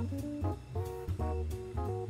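Background music with a steady beat: a jazzy tune with guitar over bass and drums.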